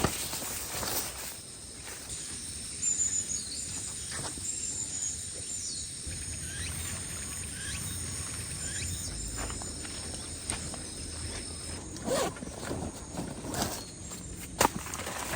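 Small birds chirping in high, thin calls with short falling notes, over a faint outdoor background. There are a few sharp knocks near the start and near the end.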